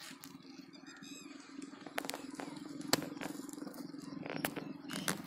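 A pile of burning matchsticks crackling with many sharp irregular pops, the loudest about three seconds in, over a steady low rumble of the flames.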